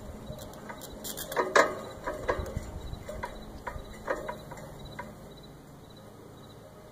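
Irregular clicks and knocks from the tilt antenna mast and the phone zip-tied to its top as the mast is tilted down, the loudest about a second and a half in; they die away around five seconds in.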